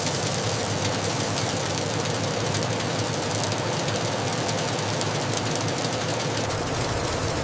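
Factory machinery running steadily: an even mechanical din with a faint hum and light scattered ticks.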